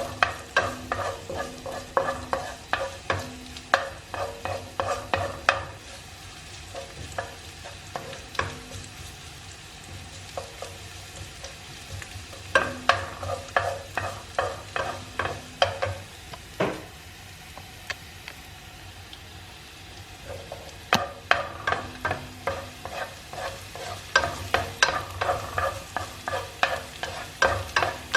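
Minced garlic sizzling in olive oil in a frying pan while it is stirred, the utensil tapping and scraping the pan in quick runs of strokes. The stirring pauses twice for several seconds, leaving just the sizzle.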